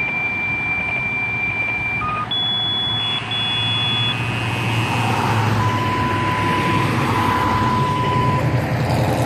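A sequence of steady electronic alert tones at different pitches, each held for one to three seconds: fire dispatch tone-out paging. Underneath, the low, steady rumble of a fire truck's diesel engine idling.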